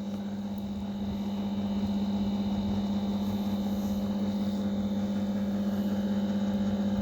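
A steady low droning hum, like a running motor or electrical appliance, growing a little louder about a second in and then holding level.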